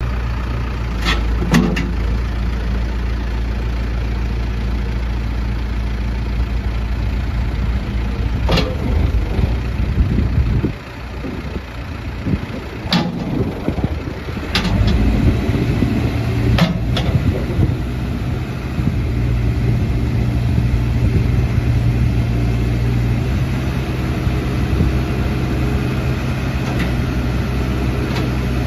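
Case 580 Super M loader backhoe's 95 HP Case diesel engine running with a steady low hum. Several sharp knocks come through over it. Around the middle the sound briefly drops and turns uneven, then the engine settles back into a steady run.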